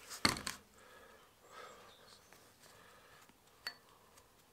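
Two sharp metal knocks right at the start as a ratchet wrench is handled and set down beside a cast-iron rear brake caliper. This is followed by quiet handling of the caliper and one short click a little before the end.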